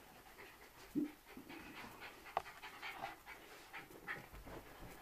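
A pet dog panting in quick, irregular breaths close by, with a short low sound about a second in and a sharp click a little past two seconds.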